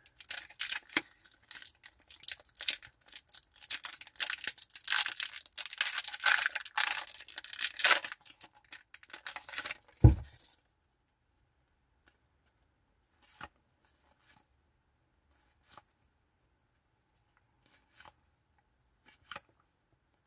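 Foil wrapper of a Pokémon booster pack being torn open and crinkled by hand for about ten seconds, ending in a single loud thump, followed by a few faint ticks.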